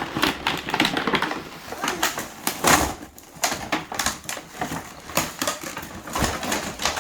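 Hard plastic toy parts and packaging being handled: a run of irregular quick clicks and rattles.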